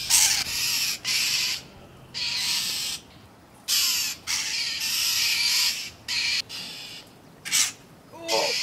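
Northern mockingbirds scolding with harsh, raspy calls, about ten in quick succession: mobbing alarm calls aimed at a cat, a predator near their nest area.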